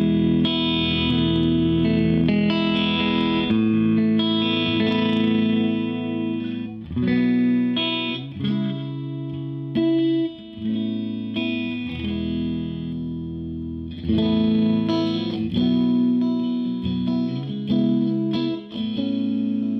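Odlair Stratocaster electric guitar played through a Marshall JTM combo amp, strumming and letting sustained chords ring, with short gaps between chord changes.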